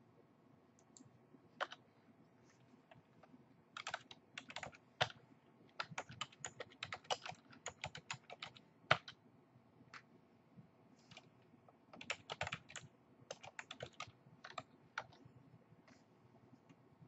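Typing on a computer keyboard: quick runs of keystroke clicks in several short bursts, with pauses between them.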